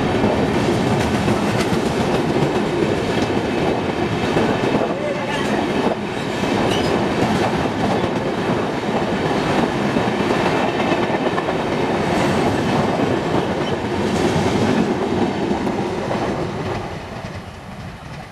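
Indian Railways express of LHB passenger coaches rolling past at speed: a loud, steady noise of wheels on rail that fades away near the end.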